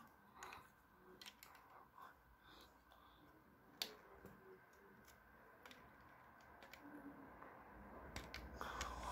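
Faint, scattered clicks of plastic Lego bricks being handled and pressed together, with one sharper click about four seconds in and a few more near the end.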